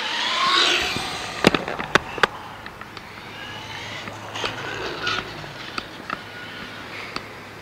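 Radio-controlled car's 15-turn 540 brushed electric motor whining up and down in pitch as the car accelerates and slows, over a hiss. Three sharp clicks come about a second and a half to two and a half seconds in.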